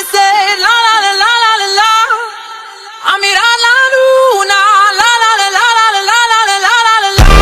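A single high voice sings an unaccompanied melody full of wavering, ornamented turns. Near the end, loud electronic dance music with heavy bass cuts in suddenly.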